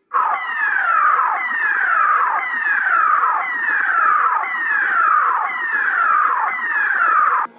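Emergency alert siren tone: a pitched electronic wail sweeping downward over and over, about once a second, each sweep falling from high to middle pitch. It starts abruptly and cuts off suddenly near the end.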